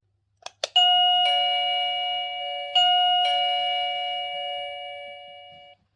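VOXON wireless doorbell receiver playing a two-note ding-dong chime, high note then low, twice over, each note ringing and fading slowly. Two short clicks come just before it.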